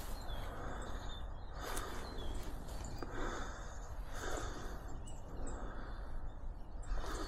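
Footsteps on the forest floor, about one step every second and a half, with small birds chirping faintly.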